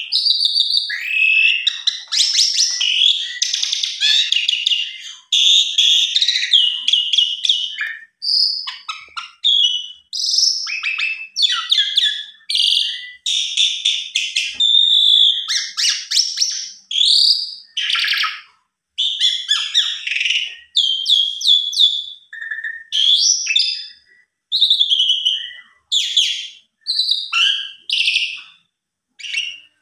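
Caged Asian pied starling (jalak suren) in long, excited full song, a rapid, varied string of whistles and chatter. It is continuous at first, then comes in phrases with short gaps between them.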